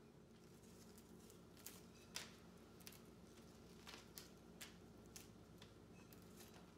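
Faint crisp snaps and rustles of leaves being stripped by hand from fresh flower stems, scattered clicks roughly every half second to second, over a low steady hum.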